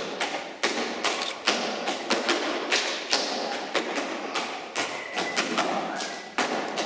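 Dancers' boots stamping and striking a wooden stage floor in Hungarian folk dance footwork: irregular sharp thuds, several a second.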